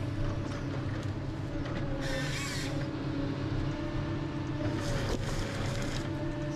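Ponsse Scorpion King forest harvester's diesel engine running steadily as the machine works, with short bursts of higher-pitched hiss about two seconds in and again about five seconds in.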